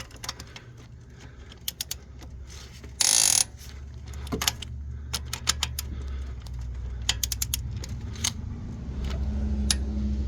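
Ratchet wrench clicking in short quick runs while cylinder head bolts are run down, with a loud half-second rasp about three seconds in and a low hum underneath from partway through.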